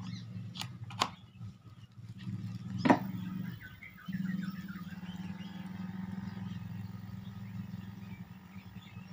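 A mains plug clicks into a power strip, with a louder click about three seconds in, over a steady low hum that stops briefly and returns. Faint bird chirps come in about halfway through.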